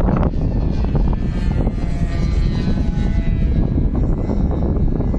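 RC aerobatic model airplane's engine heard in flight as a thin whine, clearest in the middle, under heavy wind rumble on the microphone.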